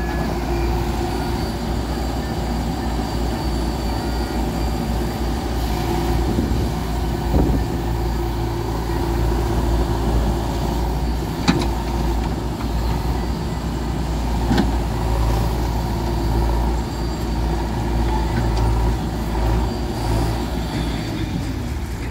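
Heavy diesel engine of earth-moving machinery running steadily with a deep rumble. Two sharp knocks come about halfway through, a few seconds apart.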